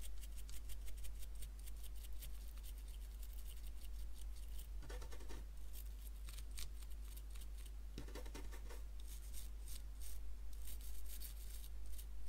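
Small brush scrubbing a wet circuit board in quick, repeated scratchy strokes, cleaning off spattered electrolyte and fluffy residue left by a burst capacitor.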